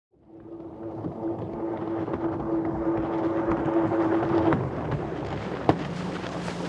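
Jet ski engine fading in and running fast with a steady whine over the hiss of water and wind. About four and a half seconds in, the engine note drops sharply to a lower pitch. A single sharp knock sounds near the end.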